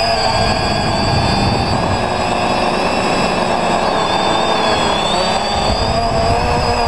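X580 quadcopter's electric motors and propellers whining in flight, heard from the onboard camera, the pitch wavering and gliding up and down as the throttle changes, over a low rumble.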